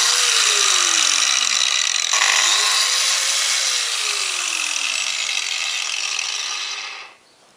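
New Makita GA4530R angle grinder running free, with no load, on one of its first runs. The new carbon brushes are still bedding in. A steady high rushing whine holds for about seven seconds, then cuts off. Under it, a lower tone rises and sinks twice.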